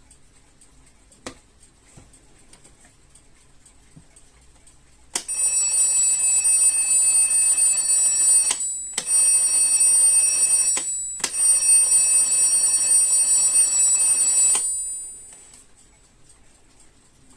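Rhythm 7RA010 space-age alarm clock's alarm ringing loudly for about nine seconds, breaking off briefly twice, then stopping. A few faint clicks come before it starts.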